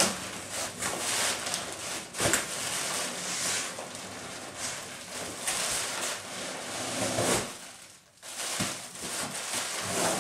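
Inflatable air-cushion plastic packaging crinkling and rustling as it is handled and pulled out of a cardboard box, with a sharp knock about two seconds in and a brief lull shortly before the end.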